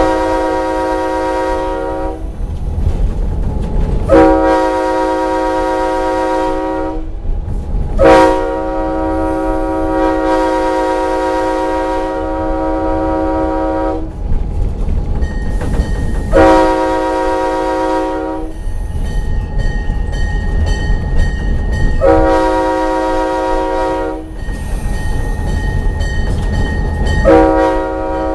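Leslie K5L five-chime locomotive air horn, formerly on a Chicago and North Western engine, sounded as a chord in about six blasts, mostly two to three seconds long with one held about six seconds, separated by short gaps. A steady low rumble runs underneath.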